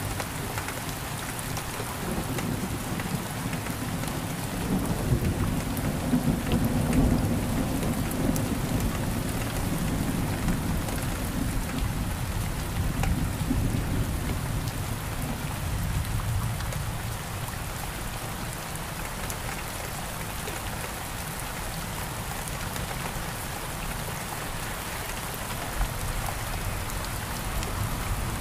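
Steady rain falling, with low rumbling thunder that is heavier in the first half and fades after about sixteen seconds.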